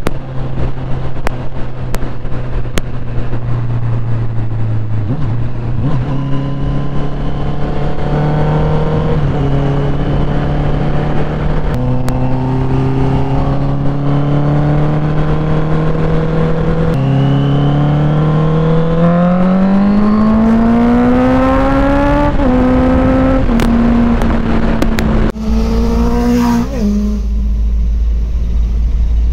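Engine of a Honda sport motorcycle accelerating on the road, its note climbing in several stages with short drops at the gear changes, then levelling off and falling away near the end. Heavy wind rumble on the microphone in the last few seconds.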